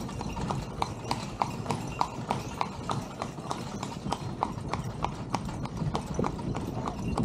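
A carriage horse's hooves clip-clopping steadily on a paved street, about three hoof strikes a second.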